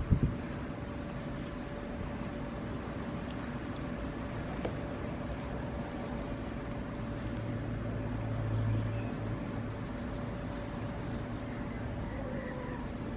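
Steady outdoor background rumble with a faint steady hum and a few faint high chirps; a low rumble swells and fades about eight to nine seconds in, and a soft thump comes right at the start.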